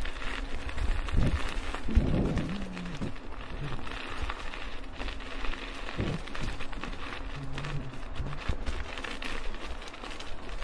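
A steady rushing, rain-like hiss over a constant low rumble, with scattered crackles and a few brief low hums.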